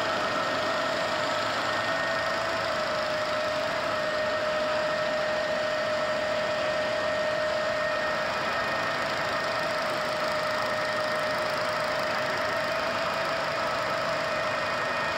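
GIDUE flexographic label press running steadily: an even machine noise with a constant whine at a few fixed pitches.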